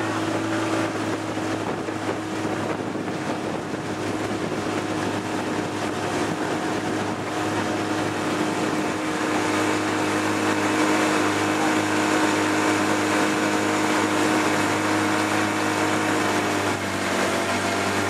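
Motorboat engine running steadily, a constant hum that grows slightly louder partway through, with some wind noise on the microphone.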